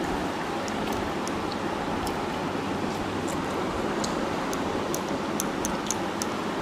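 Steady hiss with scattered faint small clicks of people eating by hand: fingers mixing rice on plates and chewing.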